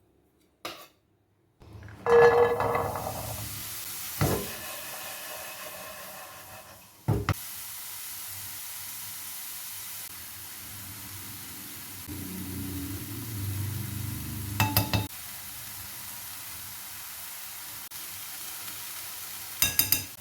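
Spiced chickpeas frying in a pan: a steady sizzle that starts loudly about two seconds in, with a utensil stirring and knocking against the pan a few times.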